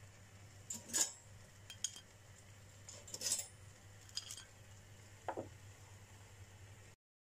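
Kitchen tongs clacking against a toaster and a ceramic plate as toast slices are lifted out and set down: a handful of sharp clinks and taps, the loudest about a second in and again around three seconds in.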